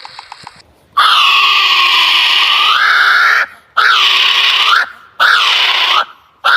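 A bird giving loud, harsh calls: one long call, then three shorter ones, each dipping in pitch and rising again at its end.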